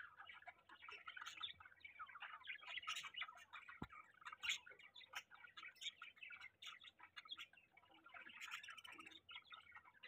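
Budgerigars (budgies) warbling and chattering faintly: a continuous quick run of short chirps, clicks and squeaks, the courtship chatter of a pair.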